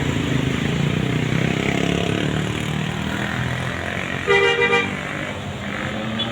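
Passing bus with its engine running, then a short, loud horn toot about half a second long a little over four seconds in.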